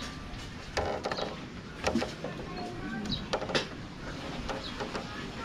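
A few sharp knocks and clicks, about four in all and spread unevenly, over a faint outdoor background.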